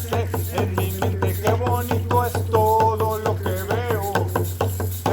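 Ceremonial chant: a hand drum beaten in a quick, steady rhythm, with a voice singing a melody over it.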